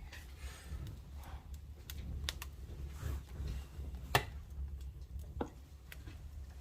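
Scattered light clicks and knocks at irregular intervals, the sharpest about four seconds in, over a low steady rumble.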